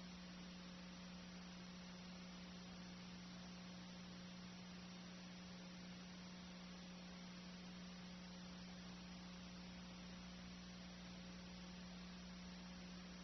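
Near silence: a steady low electrical hum with faint hiss, the empty sound track of an old videotaped game film.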